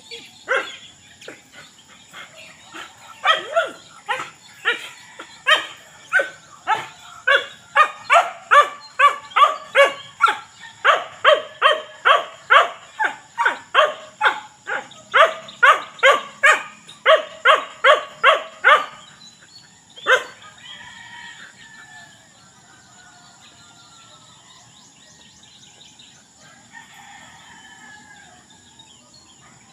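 A dog barking over and over, about two barks a second, stopping about nineteen seconds in after one last bark near twenty seconds. Fainter bird calls follow, and a steady high-pitched whine runs underneath throughout.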